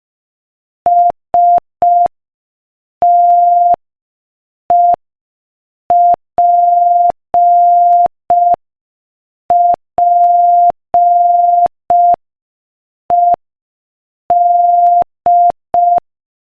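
Morse code sent as a steady beeping tone at 5 words per minute, in short dits and long dahs with clean silent gaps between them. The pattern spells the letters S-T-E-P-P-E-D.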